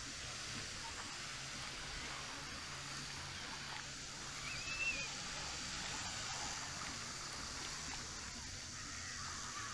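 Beach ambience: a steady hiss of small waves washing on the shore. About five seconds in comes one brief, high, warbling chirp.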